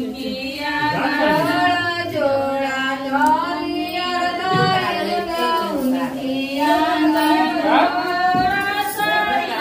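Women singing a devotional folk song together in long, drawn-out wavering notes, with a little talk underneath.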